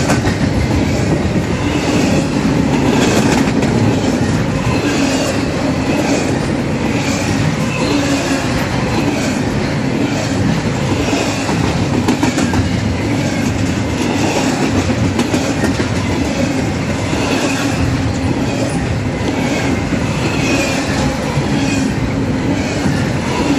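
Wheels of a Norfolk Southern double-stack container freight train rolling past close by on the rails: a loud, steady rumble and clatter with knocks repeating about once a second as the cars go by.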